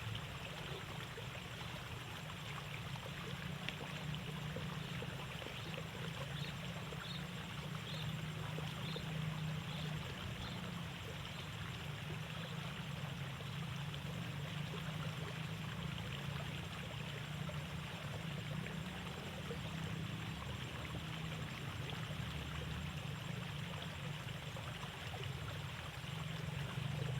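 Steady rush of water flowing along a narrow rice-field irrigation ditch.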